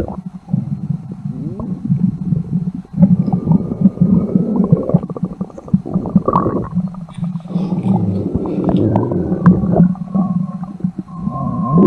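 Stomach rumbling and gurgling: continuous low churning with many small pops and crackles, and short moaning rises and falls in pitch.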